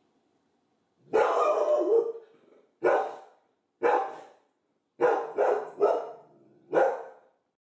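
A dog barking, starting about a second in: a run of about seven barks, the first drawn out and three in quick succession near the middle.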